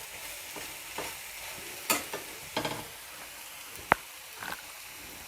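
Avial of vegetables and ground coconut sizzling in a pan while a spoon stirs it, scraping against the pan a few times, with one sharp tap near the end.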